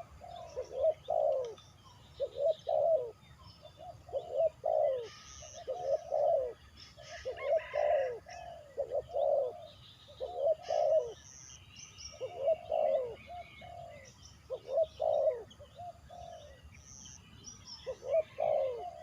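A dove cooing over and over in short groups of two or three coos, each note bending down in pitch, with brief pauses between groups. Faint chirps of small birds sound above it.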